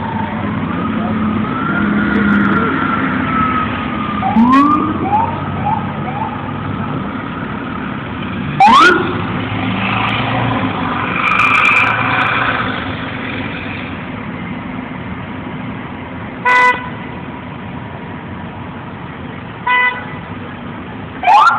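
Police car sirens giving short rising whoops over street traffic: a slow wavering siren tone at first, small chirps about four seconds in, a sharp loud whoop about nine seconds in and another at the very end. Two short horn blasts sound a few seconds apart in the later part.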